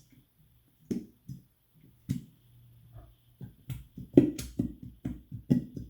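Thick clear Elmer's glue glugging and plopping out of its bottle in short gulps: a few scattered at first, then a quicker run of about three or four a second.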